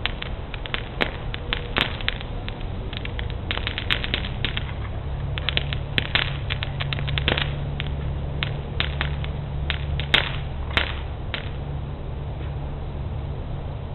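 Consumer fireworks going off: a scatter of sharp cracks and pops, some in quick crackling runs, with louder bangs about a second in, about six seconds in and near ten seconds in, over a steady low rumble.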